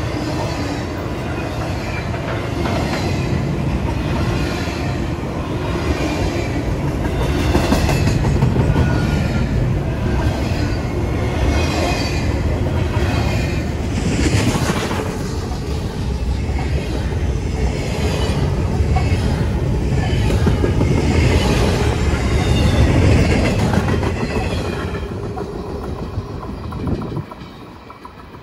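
Freight train cars rolling past close by: a steady rumble of steel wheels on rail, with repeated clickety-clack as the wheels cross rail joints. The sound dies away near the end as the last cars pass.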